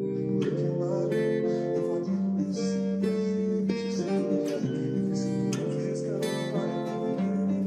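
Background music: an acoustic guitar strumming chords at a steady pace.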